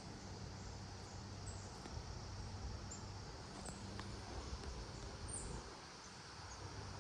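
Faint high-pitched insect chirps every second or so over a low steady hum and light background hiss.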